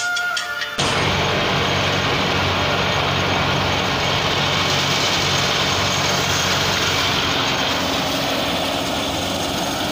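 Tractor-driven mustard thresher running, starting abruptly about a second in: a loud, steady rushing noise from the drum and fan, with the tractor engine's low hum underneath.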